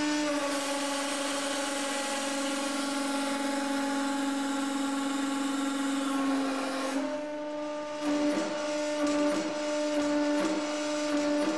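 Hydraulic press running as it loads a steel cylinder up toward 80 tons: a steady hum with a hiss over it. About seven seconds in the hiss drops away and the hum steps slightly higher, with a few faint clicks after.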